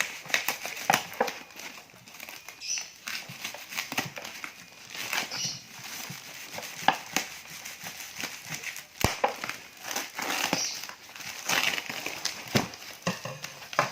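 A padded parcel being unwrapped by hand: plastic packaging and foam padding crinkling and rustling, with scattered sharp clicks and a few small knocks.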